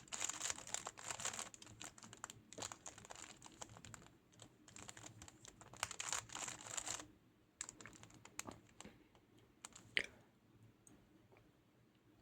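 Rubik's cube being turned by hand to solve the white cross: quick plastic clicking and rattling of the turning layers. The clicks are dense for about the first seven seconds, then sparser, with one sharper click about ten seconds in.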